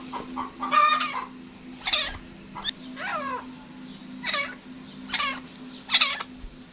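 Gray francolin calling: a series of short, harsh calls about one a second, several of them sliding down in pitch. A steady low hum runs underneath.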